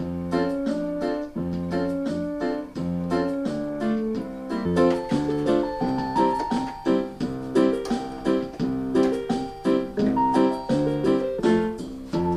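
Upbeat music played on a keyboard with a piano-like sound, moving through steady chords over a repeating bass line with a regular beat.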